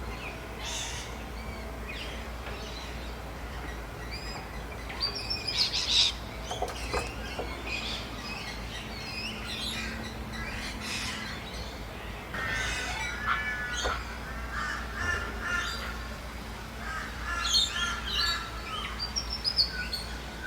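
Dawn chorus of many birds calling over one another: chirps, trills and whistled phrases, with harsh caws among them. A steady low rumble runs underneath.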